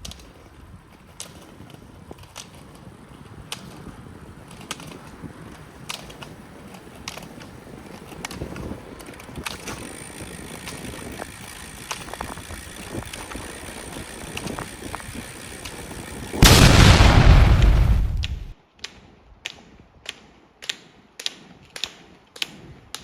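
Roller-ski pole tips clicking on asphalt about once every second and a bit, over the low rolling noise of roller-ski wheels on the road. About sixteen seconds in, a loud burst of wind noise hits the microphone for about two seconds. After it the pole clicks come faster, nearly twice a second.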